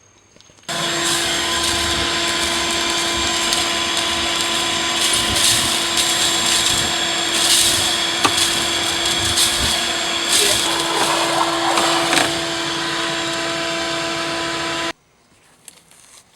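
Vacuum cleaner switched on about a second in and running at a steady, constant-pitched hum, with brief rattles along the way, then switched off abruptly near the end.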